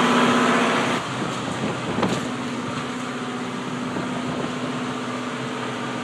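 Steady mechanical drone of a boat's running machinery, with one steady low tone over a noisy hiss. It is louder for about the first second, then settles to an even level, with a single short knock about two seconds in.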